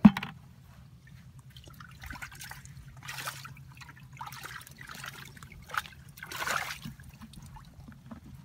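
Muddy water in a small fish-trap pit splashing and sloshing in several short, irregular spurts as a hand gropes among the trapped fish.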